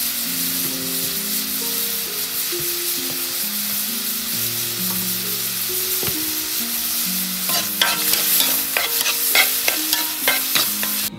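Meat and greens sizzling steadily in a hot wok. In the last few seconds a spatula stirs them, knocking and scraping against the wok several times. Quiet background music plays underneath.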